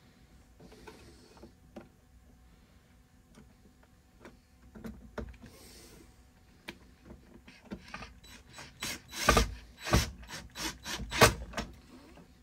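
Cordless drill driving small screws into a guitar amp cabinet. Faint handling at first, then about eight seconds in a run of loud, irregular ratcheting clicks and rattles as the screws are driven home.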